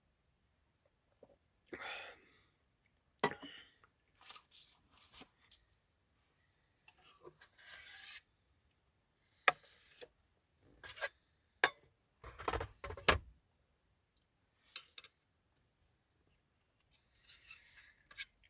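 Intermittent handling noises: short rustles and scrapes with sharp clicks and knocks of small objects being moved about, the busiest stretch a cluster of knocks about two-thirds of the way in.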